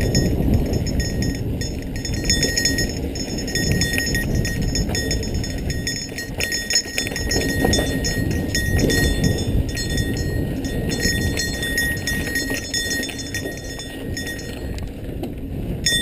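Santa Cruz Tallboy 29er mountain bike rolling fast down a dirt trail: a steady rumble of tyres and wind with the bike rattling and knocking over bumps.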